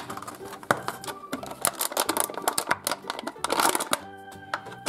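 Thin clear plastic packaging crinkling and crackling as a toy egg is handled and pulled out of its wrapper and blister tray. Quiet background music runs underneath and is heard most clearly near the end.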